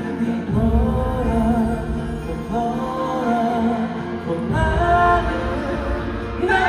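Live pop music played over a concert sound system, with a melody carried over a full low end that swells about half a second in.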